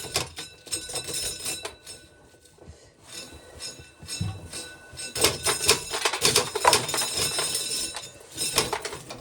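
Corn sheller stripping ears of corn: a rapid, dense clatter of kernels and cob against metal with ringing metallic clinks, thinning out around two to four seconds in and busiest from about five seconds on.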